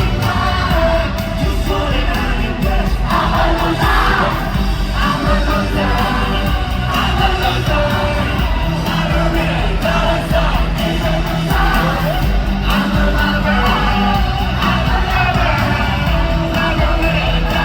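Live pop song played loud over an arena sound system, with singing and the audience yelling along.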